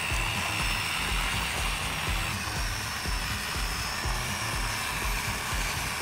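Steady whine of a miniature model power tiller's small electric motor driving its wheels by belt, over background music with a steady beat.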